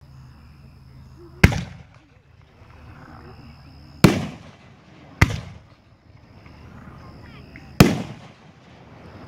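A 9-shot, 3-inch, 500-gram consumer firework cake (Pyro Predator 'Nuclear Sunrise') firing: four sharp bangs, each with a short echoing tail, spaced unevenly between one and two and a half seconds apart.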